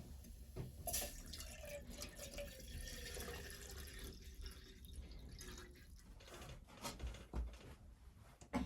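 Water dripping and trickling, with scattered small clicks.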